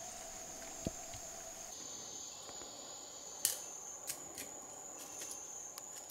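Steady high-pitched buzzing of a rainforest insect chorus, with a lower steady insect tone that drops out abruptly under two seconds in. A few sharp taps sound over it, the loudest about three and a half seconds in.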